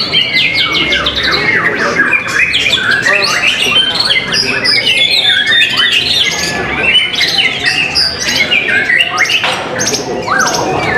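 White-rumped shama (murai batu) singing hard in a dense, continuous stream of rapid trills, whistles and fast rattles, overlapped by other caged songbirds singing at once.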